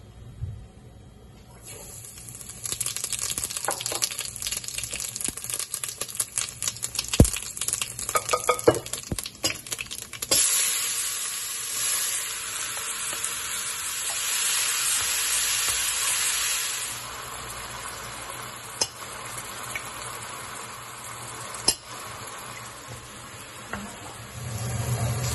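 Whole spice seeds sizzling and crackling in hot oil in a stainless steel Dutch oven. About ten seconds in, chopped onions go into the oil with a sudden louder, steady sizzle that eases off after several seconds while they are stirred with a wooden spatula, with a few sharp knocks.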